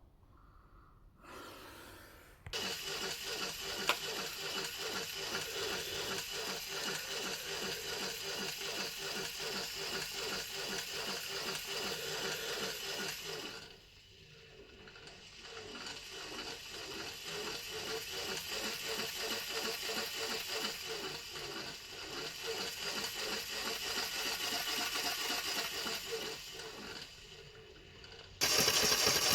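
Electric motor and gear drive of an automatic back-and-forth thrusting machine running, whirring with a fast, even clatter of strokes. It winds down and nearly stops about halfway, then starts again and builds up steadily, eases off briefly near the end and then runs louder.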